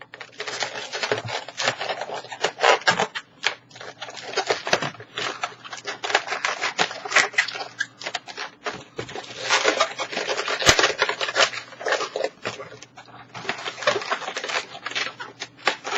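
Latex modelling balloons (260s) squeaking and rubbing against each other and the hands as they are twisted and handled, in dense runs of short squeaks and crackles.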